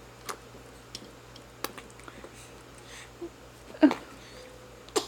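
A toddler's small mouth clicks and smacks every second or so, then two short grunts near the end.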